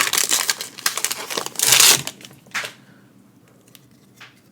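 Foil Pokémon booster pack wrapper crinkling and being torn open, with a louder rip near two seconds in, then only light rustles and clicks of card handling.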